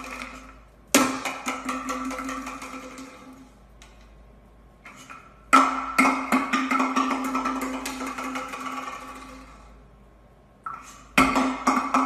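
An empty plastic bottle knocked along a hardwood floor three times. Each time it starts with a sharp knock, then clatters and rings as it rolls, fading out over two or three seconds.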